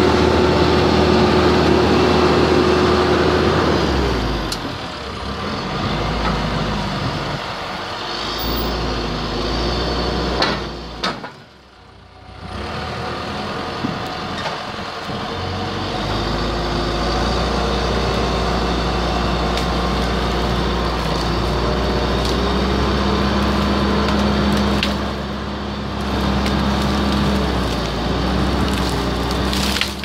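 John Deere 310K backhoe loader's diesel engine working under changing hydraulic load, dipping briefly about a third of the way through, then running steadily again. Occasional sharp cracks of the tree's wood and roots breaking.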